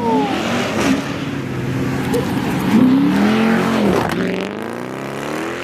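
Car engine revving hard as it accelerates past, its pitch rising and falling, loudest about three seconds in.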